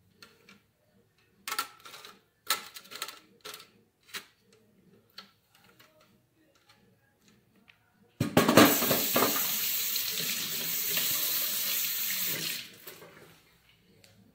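A few short knocks and scrapes from the metal box grater being handled, then water running from a tap for about four and a half seconds, starting abruptly and tapering off.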